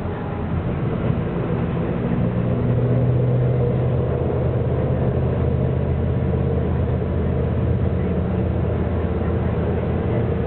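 City bus engine running and tyre and road noise heard from inside the passenger cabin while the bus drives at speed; the engine note gets a little louder about a second in and then holds steady.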